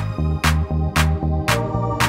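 Background music with a steady beat of about two drum hits a second over a bass line.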